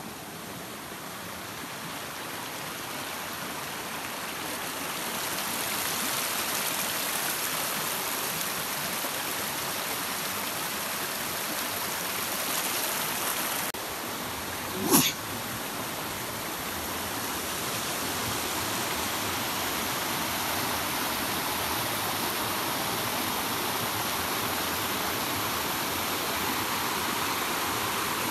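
Rushing water of a rocky stream and waterfall, a steady noise that grows louder a few seconds in. One short sharp sound about halfway through is the loudest thing.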